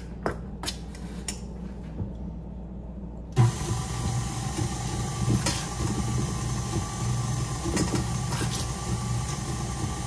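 A spoon clicks against a stainless steel bowl several times while stirring flour. About three and a half seconds in, a stand mixer's motor switches on and runs steadily, mixing the dry ingredients into the creamed batter.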